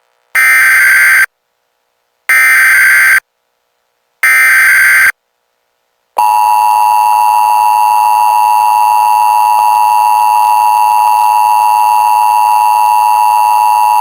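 Emergency Alert System tones: three short bursts of SAME header data, each about a second long and two seconds apart, then the steady two-tone EAS attention signal, held for about eight seconds before it cuts off.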